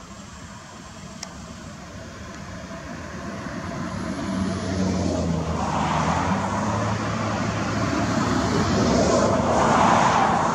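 Dust devil's swirling wind rushing over the microphone as the dust column reaches the camera. It grows steadily louder, swells about halfway through and again near the end.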